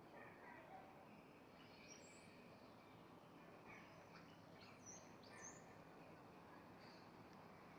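Faint, scattered bird chirps over a steady background hiss.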